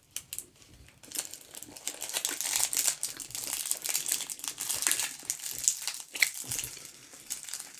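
Crinkling of a twist-wrapped chocolate truffle's wrapper being unwrapped by hand, a dense crackle starting about a second in and easing off near the end.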